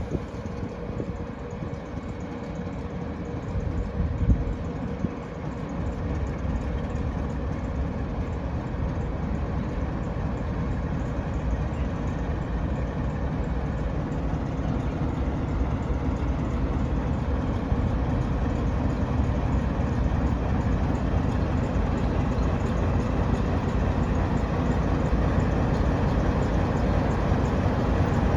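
Sulzer diesel engine running steadily with a deep continuous rumble, slowly getting louder, with a brief louder surge about four seconds in.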